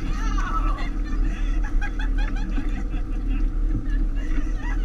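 Tour boat's engine running with a steady low drone while under way, with passengers' voices chattering faintly over it.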